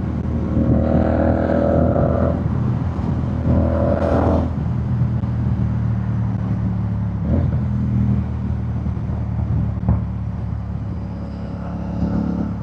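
Royal Enfield Shotgun 650's 648 cc parallel-twin engine running on the move. Its note rises briefly twice in the first five seconds, then settles to a steady run.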